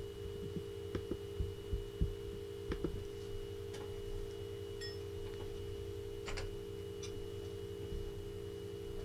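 Steady electrical hum with a thin high-pitched whine, under a few light knocks and clicks in the first three seconds as someone moves at a desk and gets up from a chair. A few faint clicks follow later.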